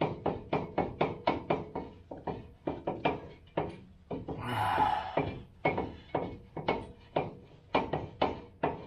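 Dana 44 ring and pinion being turned by hand in the open axle housing to roll a contact pattern into freshly painted teeth, giving a steady run of sharp metallic clicks about four a second; the backlash is still set way out. A brief rushing noise about halfway through.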